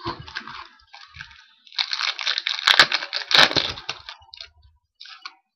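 Crinkling and rustling of foil trading-card pack wrappers and cards being handled, loudest for about two seconds in the middle, with a few sharp clicks.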